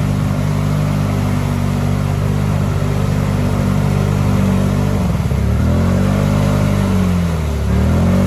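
Can-Am ATV's V-twin engine held at high revs while bogged in deep mud, then the revs drop and climb back twice as the rider rocks the machine to work it free.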